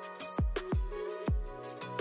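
Instrumental background music with a few deep, pitch-dropping bass thuds and held tones.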